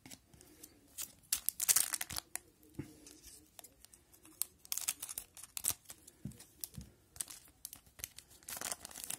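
A foil trading-card pack being torn open and crinkled by hand, in short scattered crackles with the busiest tearing about a second and a half in and again near the end.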